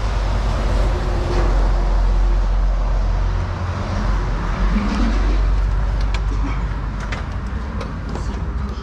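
Steady rumble of road traffic, with wind buffeting the microphone. In the last few seconds come a few light clicks and knocks as a glass door is opened and walked through.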